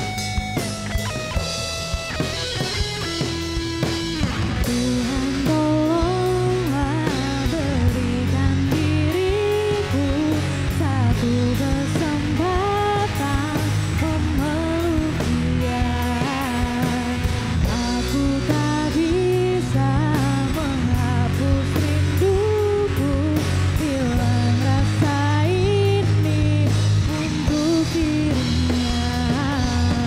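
Live band music: electric guitar plays over drums for about the first four seconds, then a woman sings the melody over electric guitar, bass guitar and drum kit.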